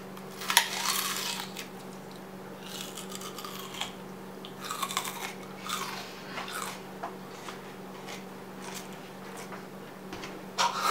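Biting into a raw red onion: a loud crunch about half a second in, then bursts of wet crunching as it is chewed. A short vocal sound near the end.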